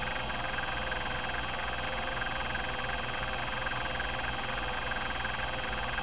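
Epson-Seiko HD-860 20 MB hard drive seeking during a sweeping seek test: its linear stepper-driven rack-and-pinion head actuator buzzes with a rapid, even run of step clicks over the steady whir of the spinning platters.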